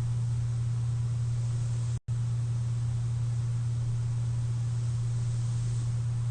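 CPAP machine running: a steady low hum under a faint, even air hiss, with no snore or breath rhythm. The sound cuts out completely for a split second about two seconds in.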